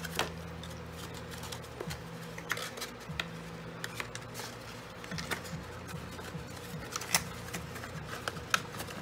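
Cardstock rustling and tapping as hands handle a small paper box and thread a rubber band through it, with a few sharp taps. Soft background music with low held notes underneath.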